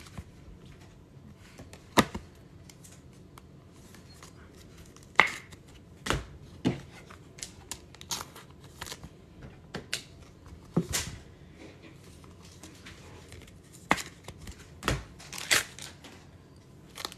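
Baseball trading cards being handled and sorted by hand, with a plastic pack wrapper rustling: scattered short, sharp clicks and taps of cards against each other and the table, the loudest about two and five seconds in.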